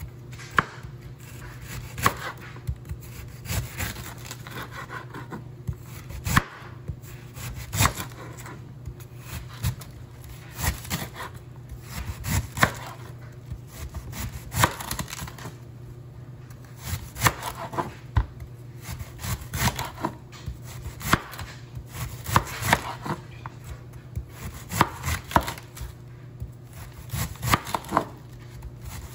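Chef's knife slicing through a head of green cabbage on a plastic cutting board: an irregular run of crisp cuts, each ending in a knock of the blade on the board.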